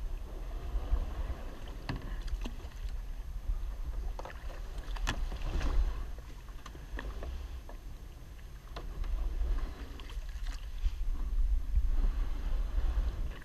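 Plastic Pelican kayak being paddled and pushed through shallow water full of logs and branches: irregular paddle splashes and sharp knocks of the paddle and hull against wood. Low wind rumble sits on the microphone throughout.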